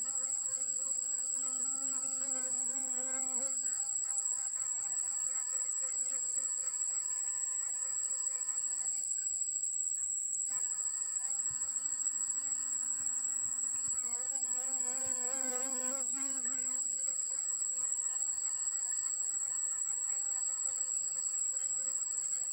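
Honeybee buzzing in flight close to the flowers, a wavering hum that swells twice as the bee comes near and drops out briefly about ten seconds in. A steady high-pitched whine sits beneath it and is louder than the buzz.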